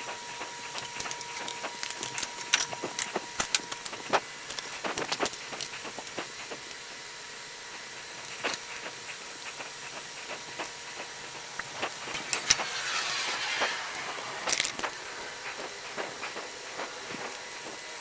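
Irregular light clicks and knocks, with a faint steady tone in the first few seconds and a short hiss about two-thirds of the way through.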